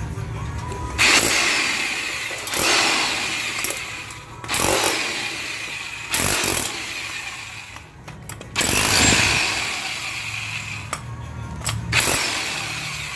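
A handheld power tool runs in about six short bursts, a second or two each and a few seconds apart, with a steady whine through each burst.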